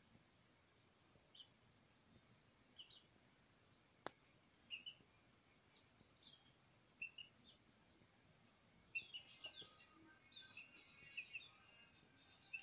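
Faint bird chirps over near silence, coming more often in the last few seconds; a single sharp click about four seconds in.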